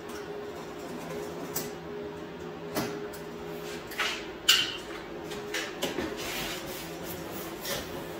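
A long cardboard box being handled on a plastic folding table: scattered knocks and taps, the sharpest about four and a half seconds in, over a steady low hum.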